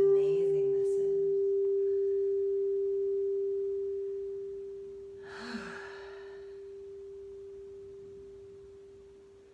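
A singing bowl tuned to G, for the throat chakra, rings on as one steady pure tone after the rim has been rubbed, slowly fading away. About five seconds in there is a long breath out.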